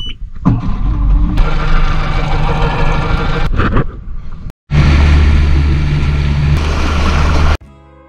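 Mercury outboard engine started with the ignition key and then running steadily, louder after a short break about halfway through. Near the end it gives way to background music.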